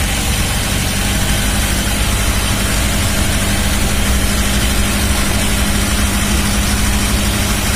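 A vehicle engine running steadily: a constant drone with a steady hum and low rumble, no change in pitch.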